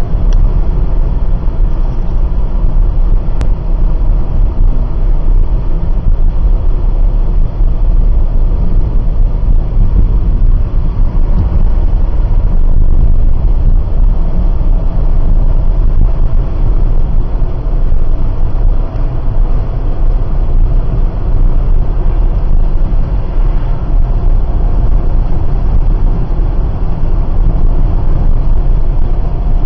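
A Citroën car driving at road speed, heard from inside the cabin: a loud, steady low rumble of engine and tyre noise.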